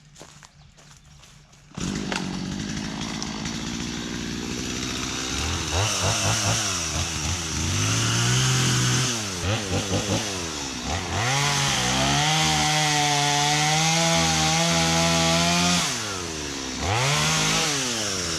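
A small single-cylinder engine starts sounding suddenly and revs up and down several times. It holds at high revs for a few seconds, drops briefly, revs again and cuts off abruptly.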